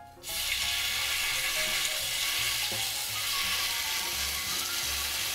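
Marinated chicken galbi frying in oil on a hot electric griddle: a sizzle that starts suddenly just after the first piece goes down, then holds steady.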